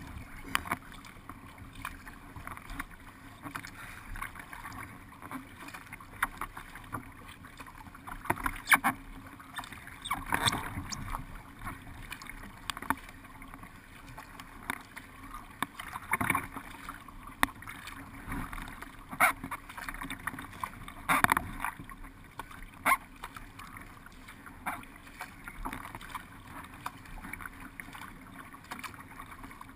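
Water rushing and splashing along the hull of a paddled racing boat under way, with irregular sharp knocks and splashes scattered through it.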